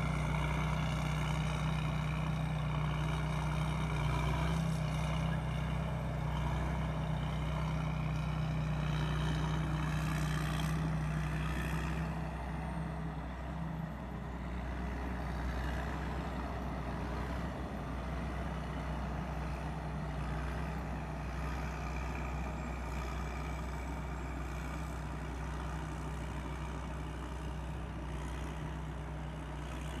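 Tamco S7000 combine harvester's Hino J08C diesel engine running steadily under load, a constant deep hum with the clatter of the machine, a little quieter after about twelve seconds as the harvester moves off into the rice.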